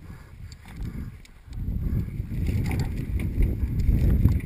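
Mountain bike descending a dirt trail at speed, heard from a helmet camera: low wind rumble on the microphone and tyre noise over the dirt, with scattered rattling clicks from the bike. It grows louder about a second and a half in.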